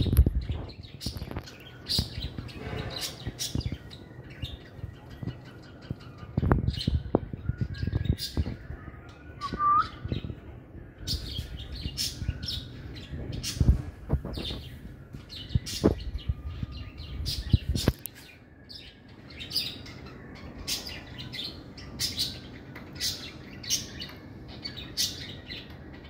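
Caged aviary birds, lovebirds among them, chirping in many short, sharp calls throughout. A low rumble underneath cuts off suddenly about two-thirds of the way through.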